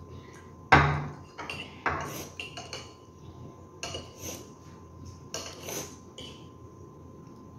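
Metal forks clinking and scraping against noodle bowls as two people eat, a handful of sharp clinks spread out, the loudest a knock about a second in.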